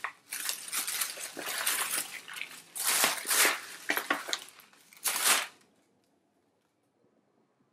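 Thin plastic bag crinkling and rustling in irregular bursts as it is handled and pulled open, stopping about five and a half seconds in.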